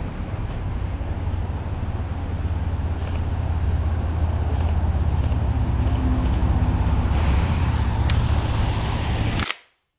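Street traffic: a steady low rumble of cars that grows a little louder, with a few faint clicks, then cuts off abruptly near the end.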